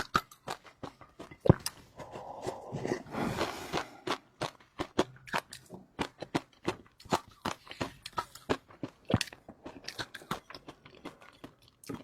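A person biting and chewing food close to the microphone: rapid crunches and wet clicking mouth sounds, with a squelchier stretch about two seconds in.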